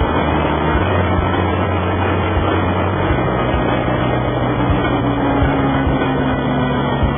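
Steady road noise at speed: a vehicle engine running under a rush of wind, with no change in pitch beyond a slight shift a few seconds in.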